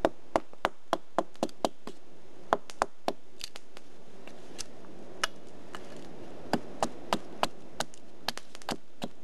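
Hatchet striking and splitting a short chock of alder wood: a run of sharp knocks, several a second at first, with a pause in the middle and another run of strikes near the end.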